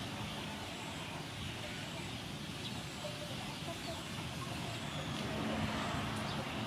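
Steady outdoor ambience: an even hiss of background noise with a faint low hum and a few faint bird calls.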